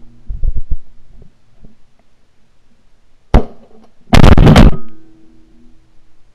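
Two shotgun shots at flying pigeons: a sharp crack about three seconds in, then a louder, longer blast under a second later, followed by a brief ringing tone.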